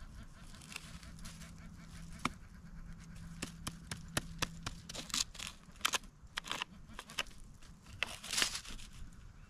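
Digging tool chopping and scraping into rocky soil: a run of sharp clicks and short scrapes, with a faint low steady hum in the first half.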